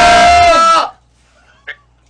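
A man's loud, drawn-out shout held on one pitch, cut off abruptly just under a second in. It is followed by quiet with a single short click.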